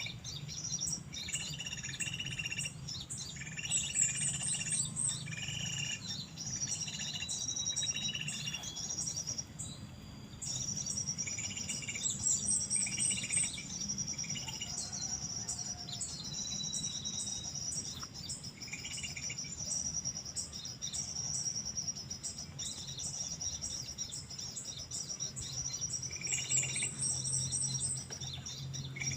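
Small birds chirping and calling again and again: short paired chirps and quick high trills, over a steady high insect buzz.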